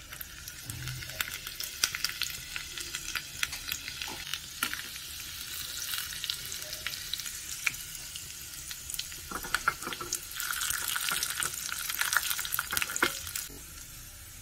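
Hot oil sizzling and crackling in a small steel tadka pan as chopped garlic and dried red chillies fry for a tempering. The sizzle is steady, with frequent sharp pops, and grows louder for a few seconds about ten seconds in.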